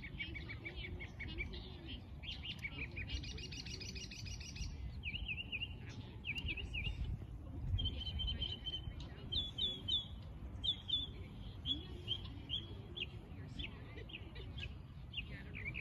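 Small birds chirping and twittering: quick runs of high notes and repeated falling chirps, over a steady low rumble.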